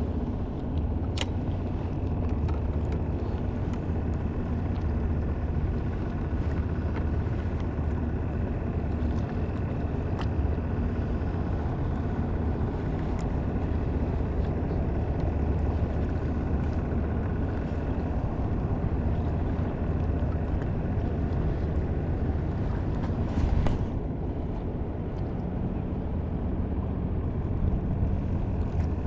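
A small boat's motor running steadily, a low rumble with a faint steady whine.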